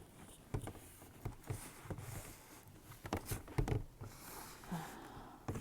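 Rain pattering, with scattered irregular drip-like taps and a few dull knocks.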